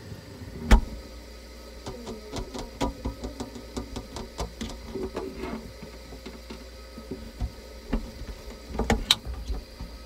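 Handling noise of a phone moved among plastic water bottles inside a mini fridge: a run of irregular clicks, taps and knocks, the sharpest just under a second in and another near the end.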